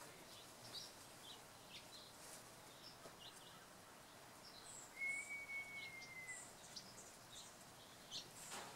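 Small birds chirping faintly, with one long whistled note, slightly falling in pitch, about halfway through.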